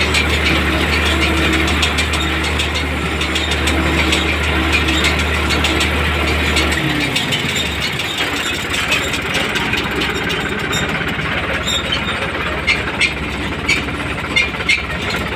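New Holland tractor engine running with a Tümosan S690 square baler working behind it, heard from inside the cab. About seven seconds in the low hum falls away and the pitch winds down, and the engine runs on at a lower speed, with a string of sharp knocks near the end.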